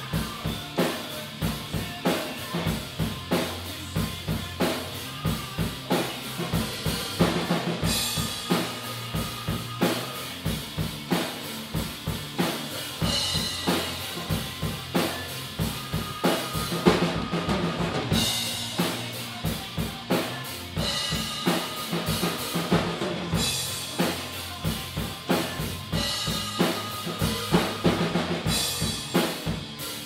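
A drum kit with two bass drums played in a steady, driving rock beat: kick drums, snare and toms, with cymbal crashes every few seconds.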